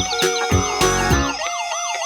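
Fast electronic siren warbling up and down about three times a second over upbeat background music, cutting out near the end.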